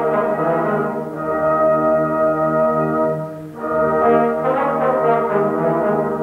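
Brass band playing full sustained chords on cornets, horns and tubas. The sound dips briefly about three and a half seconds in, then swells back up.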